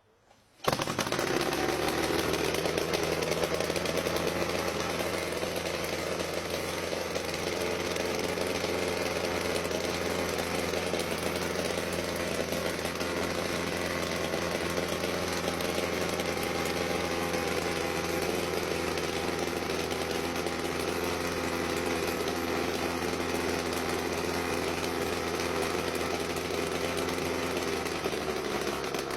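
Small engine of a home-built helicopter running steadily at a constant speed. It comes in suddenly about half a second in and keeps an even, rattly, saw-like tone.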